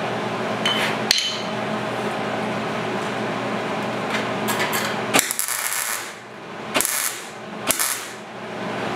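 Small cut-off wheel grinding into the rusted sheet steel of a 1939 Chevrolet's lower front quarter panel in several short bursts, throwing sparks. A steady hum runs underneath and stops about five seconds in, and there are a couple of sharp metallic knocks about a second in.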